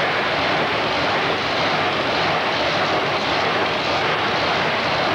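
Modified pulling tractor's engines running steadily, a loud dense drone with no revving or sharp changes.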